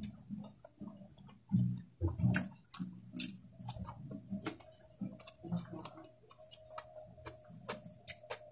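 Close-miked chewing and lip smacks of a person eating rice by hand: a run of short, wet mouth clicks, several a second, with soft low thuds of chewing. A faint steady hum runs underneath.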